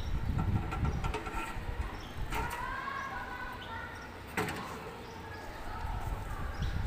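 Handling noise from an aluminium window frame and its glass pane: two sharp clicks, about two and four seconds in, over a low rumble, with a brief squeak after the first click.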